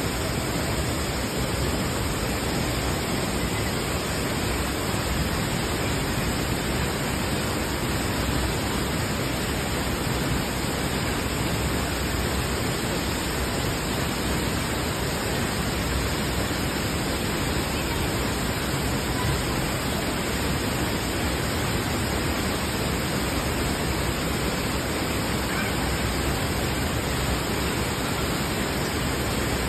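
Steady, even rushing of a waterfall pouring into its pool, with no change.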